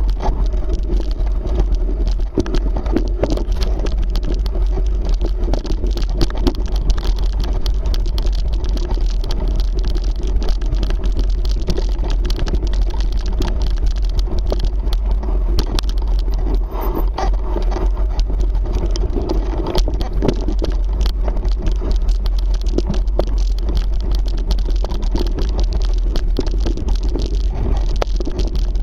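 Mountain bike descending a rocky singletrack, heard from a body-mounted action camera: a constant loud rumble of wind and tyre noise on the mic, with continual rattling and clicking as the bike runs over stones and gravel.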